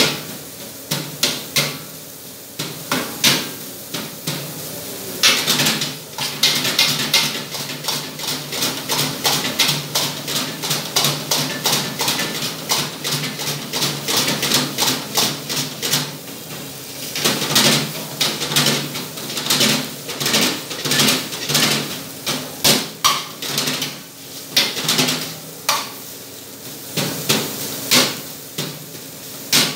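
Metal ladle clanking and scraping against a steel wok as fried rice is stirred and tossed, many quick irregular knocks, over a steady low hum.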